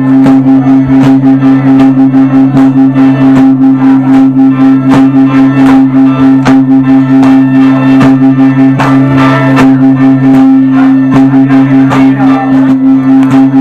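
Loud music: plucked strings over a steady two-note drone, with a regular beat.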